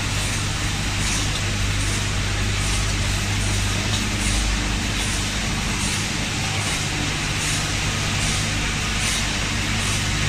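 Packaging-line machinery running steadily, including a fast-back conveyor carrying nuts. A low hum sits under a broad hiss, with faint ticks about once or twice a second.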